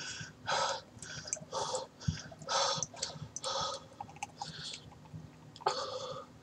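A man breathing hard through his open mouth, one hissing breath about every second, with a short lull before a last one near the end. He is panting against the burn of a freshly eaten scorpion pepper.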